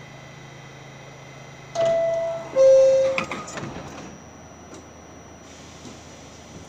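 R68A subway car's two-tone door chime, a held higher note then a lower one, followed by the doors sliding shut with a short clatter.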